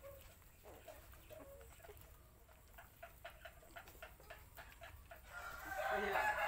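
A rooster crows loudly about five and a half seconds in, the loudest sound here, after a stretch of faint clucking and soft short clicks.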